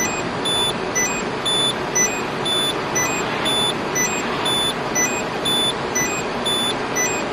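Peugeot 308 seat belt warning chime beeping over and over in an even two-note pattern, about twice a second, over a steady rushing background noise. It is the false alarm from the rear seat belt sensor going off at random.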